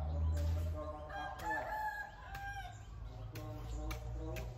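A rooster crowing once: a single drawn-out call starting about a second in and lasting about a second and a half.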